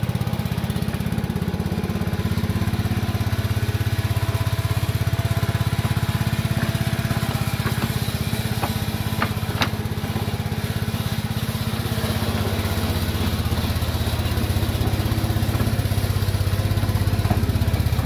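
Small engine of a ride-on backyard-railway diesel-outline locomotive running steadily as the train rolls along the track. A few sharp clicks come about nine to ten seconds in.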